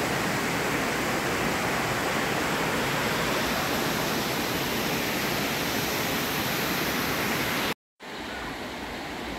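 Huay Kaew Waterfall: water falling and rushing over rock, a steady dense wash of sound. Near the end it cuts to a quieter, shallower stream flowing.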